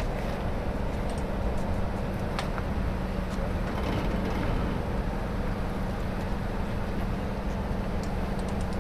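An engine running steadily, a continuous low hum with a few faint clicks over it.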